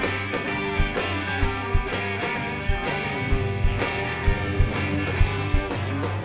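Live rock band playing an instrumental passage: electric guitar over bass and a steady drum beat.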